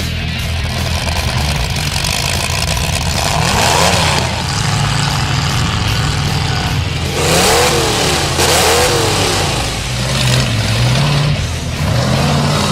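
Demolition derby car engines running loud and revving, the pitch rising and falling in several sweeps, strongest about halfway through.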